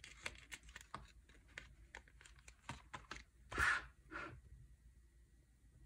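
Sticker sheets and planner paper being handled: a scatter of light small clicks and taps, with a short papery rustle about three and a half seconds in and a fainter one just after.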